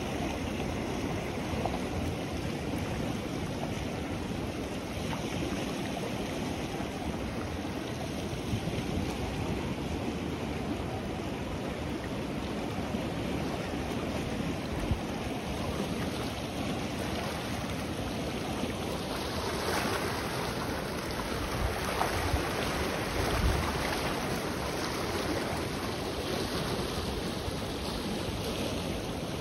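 The Ganges running fast and turbulent past the bank: a steady rushing of churning river water, growing a little louder about two-thirds of the way in.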